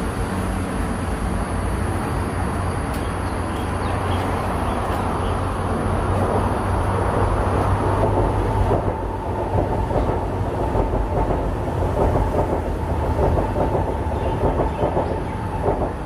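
North–South Line (red line) MRT train passing, with a steady rumble and rail clatter. A high steady whine joins about halfway in and stops shortly before the end, when the sound drops away.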